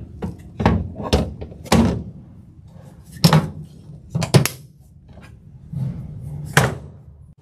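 Hard plastic knocks and thunks from a golf cart's removable rear cooler bin being lifted out of its compartment, then from the rear seat panel being moved: about eight irregular knocks, a few close together.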